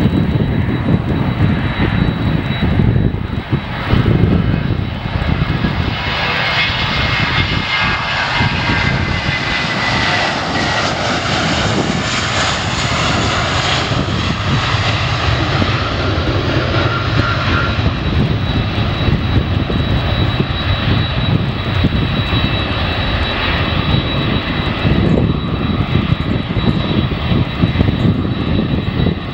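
Jet airliner engines passing over a continuous low rumble. A whine swells through the middle and slides down in pitch as the plane goes by.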